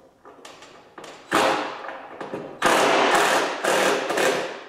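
Cordless power driver driving screws into wooden boards, in two runs: a short one about a second in and a longer one of about two seconds just after.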